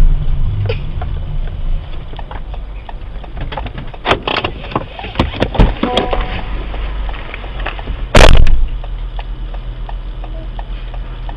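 Recording from a dashcam inside a stopped car, over a steady low hum: scattered clicks and knocks, then about eight seconds in one loud, short burst, the car door being opened as the driver gets out.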